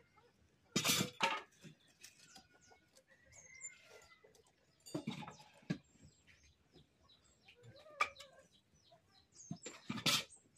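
Chickens clucking around a farmyard, with small bird chirps and several sharp clattering knocks a few seconds apart, the loudest about a second in and near the end.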